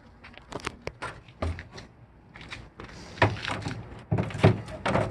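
A run of irregular knocks and clunks, like hard objects being handled and set down, getting louder in the second half.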